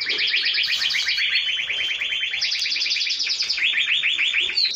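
Spanish timbrado canary singing a long, unbroken song of fast trills, each a rapid string of repeated notes, stepping up and down in pitch from one trill to the next.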